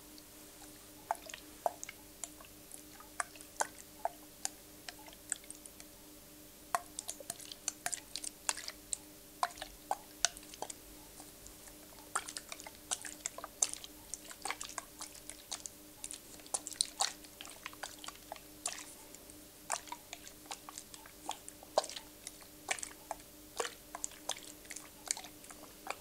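Typing on a computer keyboard: irregular, quick key clicks, several a second, over a faint steady hum.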